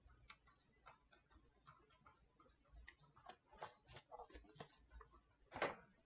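Faint scattered clicks and taps of a spreader working thermal paste over a PS4 Pro's APU, growing busier about three seconds in, with one louder knock about five and a half seconds in.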